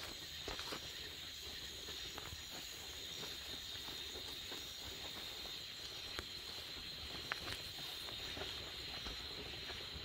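A steady, high-pitched chorus of night insects, with scattered light clicks and rustles of footsteps through grass and brush.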